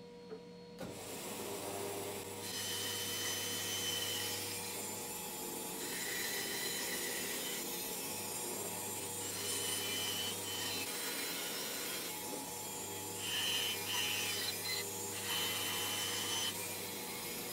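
Small electric narrow-bladed saw running with a steady motor hum while cutting through thick plywood; the cutting noise swells and eases several times as the block is fed into the blade along a curve.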